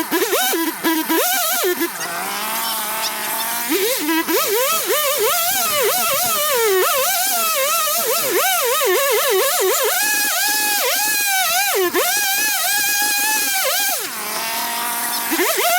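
Chainsaw running at high throttle, its pitch repeatedly dipping and recovering as it bogs in the cut. It drops to a lower steady note about a second before the end, then revs up again.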